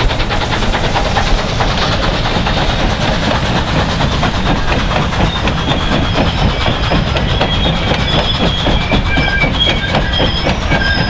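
Steam-hauled passenger train passing, its wheels clacking over the rail joints as the coaches roll by. High-pitched wheel squeals set in from about six seconds in.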